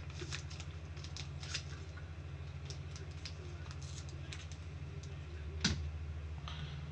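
Light, irregular clicks and taps of typing on a computer keyboard, with one sharper click near the end, over a steady low hum.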